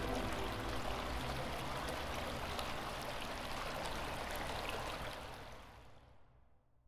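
The closing tail of a background music track: the melody has stopped and an even, rain-like hiss with faint scattered crackles is left, fading out to silence about six to seven seconds in.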